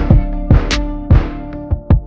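Background music: a steady drum beat over sustained held tones.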